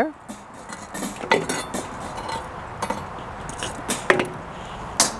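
Hot charcoal briquettes being picked off the lid of a cast-iron Dutch oven, with a handful of separate clinks and light knocks over a low hiss.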